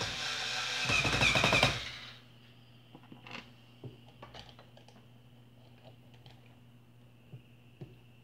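Small cordless electric screwdriver running, then rattling rapidly and loudly for about a second before it stops about two seconds in. After that come faint clicks and taps of parts being handled.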